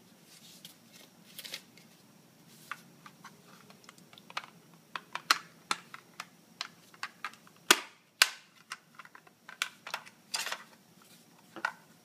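Plastic clicks and knocks as the WKP 02 keypad's plastic housing is handled and its cover fitted, including two sharp snaps about eight seconds in and a brief scraping about two seconds later.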